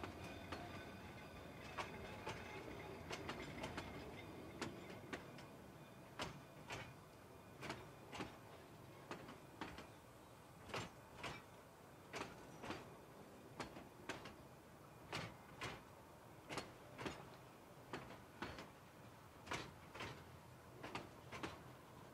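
Narrow-gauge railroad cars rolling slowly past, their wheels clicking over the rail joints, often in quick pairs as each truck's two axles cross. A faint, high, steady whine fades out over the first few seconds.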